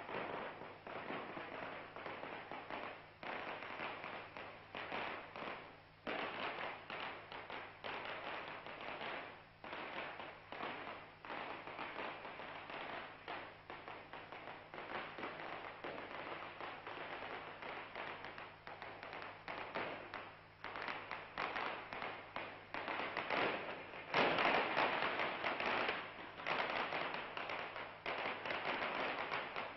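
Firecrackers going off in long strings, a dense rapid crackling that grows louder about three quarters of the way through, over a steady low hum.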